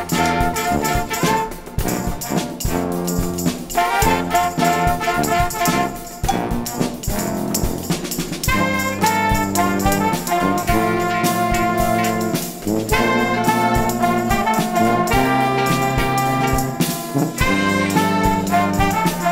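Children's brass ensemble of trumpets, a trombone, a horn and alto saxophones playing a lively tune to a steady beat. Short repeated notes give way to longer held notes about halfway through.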